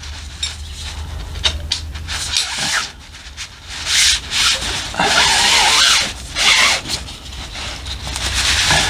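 Aluminium cot poles being pushed down through the fabric sleeves along the sides of a camping cot bed: a scraping, rubbing hiss in several long strokes, with a few light knocks of the poles.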